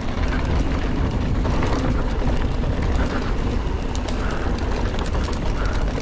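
Giant Trance 3 mountain bike running fast downhill on a dirt trail: a steady rush of wind on the camera microphone and rolling tyres, with quick, continual rattling and clicking from the bike over rough ground.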